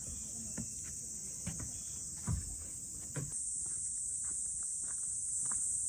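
Crickets chirping in a steady, high-pitched trill, growing louder about three seconds in, with a few soft knocks, the loudest a little past two seconds.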